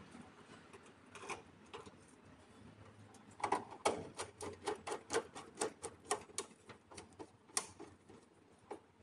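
Screwdriver turning the terminal screw of a fuse holder in a PV combiner box to clamp a PV cable: a few scattered clicks, then a quick run of small sharp clicks, about four a second, for some four seconds.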